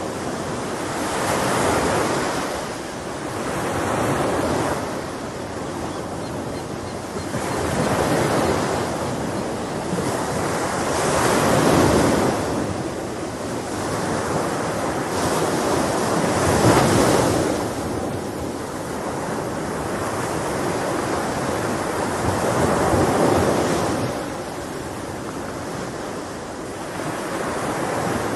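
Sea waves breaking and washing on the shore in slow surges a few seconds apart, with wind.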